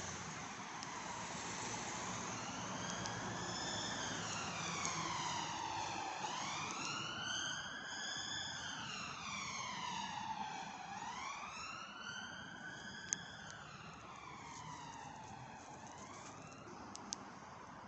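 A siren wailing slowly, its pitch rising and falling about three times before it fades near the end. A few sharp clicks are heard in the later part.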